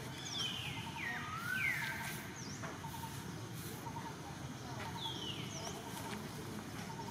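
High whistled animal calls that slide downward in pitch: a cluster in the first two seconds, then another about five seconds in and one at the end. A faint, steady run of short chirps and outdoor background noise sit beneath them.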